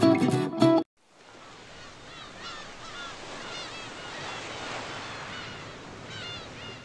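Plucked guitar music cuts off under a second in. A steady wash like ocean surf then fades in and swells, with small birds chirping in short clusters over it, and fades away at the end.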